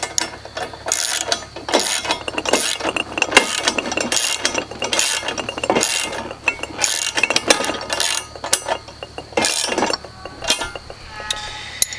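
Ratchet wrench tightening bolts on the mill's metal frame: repeated strokes of rapid ratcheting clicks, about one stroke a second.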